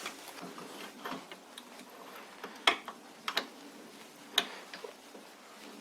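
A few irregular light metallic clicks from a threaded part being worked along the lathe spindle's damaged, hand-filed thread, which is still tight and binding.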